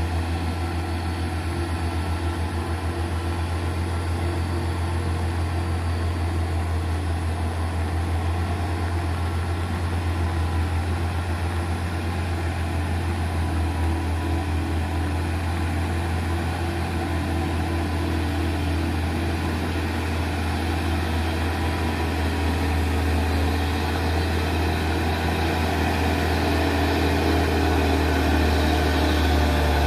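Hino truck's diesel engine labouring up a steep hairpin climb at low, steady revs, straining, near to running out of power on the grade. It grows louder toward the end as the truck draws nearer.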